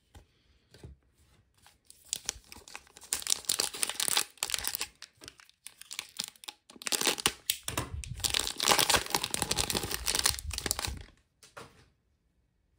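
Foil wrapper of a trading card pack crinkling and tearing as it is opened by hand, in two long spells of crackling, then stopping about a second before the end.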